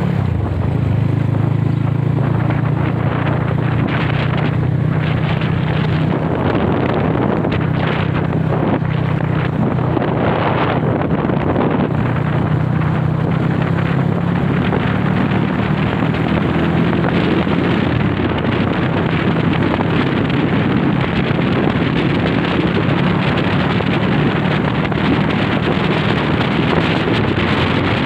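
Classic Honda CB motorcycle engine running at a steady pace on the move, under heavy wind noise buffeting the microphone.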